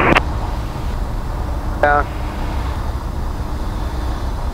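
Cabin noise of a Cessna 172R in the landing flare: the four-cylinder Lycoming engine throttled back, a steady low drone mixed with airflow noise.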